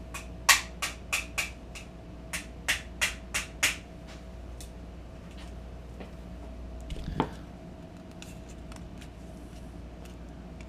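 Hammer striking the plastic case of a Cree 4Flow LED bulb on concrete: about nine sharp blows in two quick runs, then a few faint taps and one more knock about seven seconds in. The blows leave the case barely cracked.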